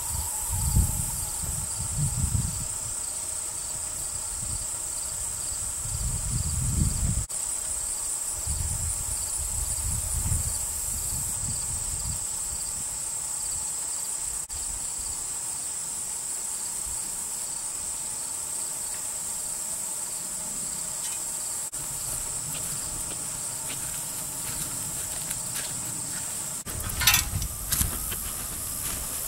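Steady, high insect chorus of crickets trilling without a break. A few low rumbles come in the first ten seconds, and a short louder clatter comes near the end.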